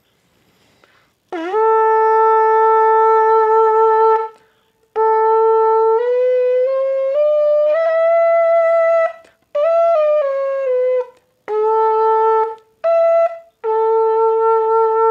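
Large bukkehorn (goat-horn trumpet with finger holes), lip-buzzed through its mouthpiece. It opens on a long low note that scoops up into pitch, then plays a short phrase of notes stepping up and back down, with breaths between, and ends on the long low note again.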